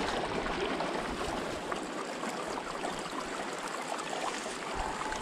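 Mountain river flowing steadily, an even rush of water.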